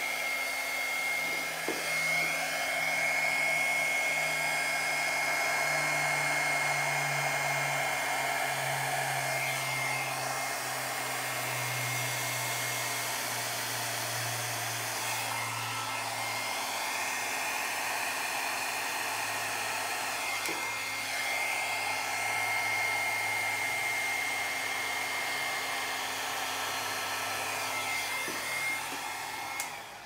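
Hair dryer blowing a Dutch pour, running steadily with a high whine; it switches off near the end.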